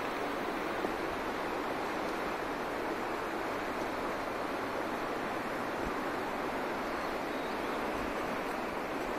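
Steady rush of a fast-flowing river, an even hiss of running water with no break.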